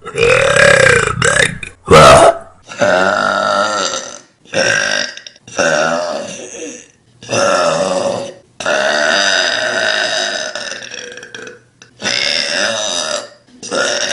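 A young woman burping loudly, a string of about nine or ten separate belches cut one after another, most a second or so long and one in the middle drawn out for about three seconds.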